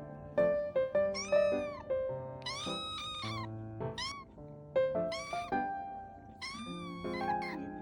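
Young kitten meowing repeatedly, about five high-pitched cries that each rise and fall in pitch, over background music of steady held notes.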